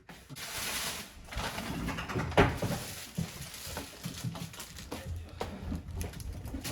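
Scraping, rustling and small knocks of hands and tools working on an appliance, with one sharp knock about two and a half seconds in.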